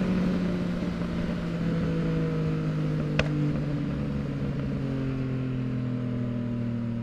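2023 Yamaha MT-09's three-cylinder engine running through a Full Mexx aftermarket exhaust while riding, its note slowly falling as the bike slows. A single sharp click comes about three seconds in.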